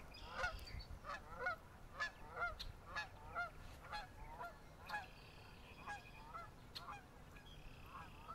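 A flock of geese honking as they fly over, many short calls about twice a second, growing sparser and fainter in the second half.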